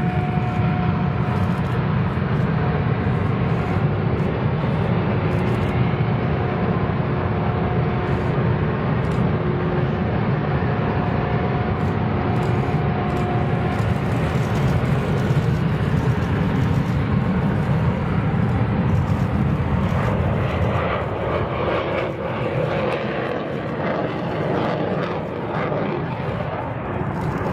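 Jet aircraft engines running: a steady rushing rumble with a faint held whine in the first half, turning rougher and more crackly about twenty seconds in.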